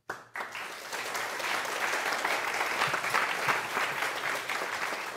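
An audience applauding: many hands clapping together, starting almost at once and swelling over the first two seconds, then holding steady.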